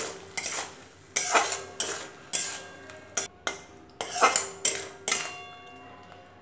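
Spatula stirring a wet masala in a metal kadai (wok), scraping and knocking against the pan about twice a second with brief metallic ringing. The strokes stop shortly before the end.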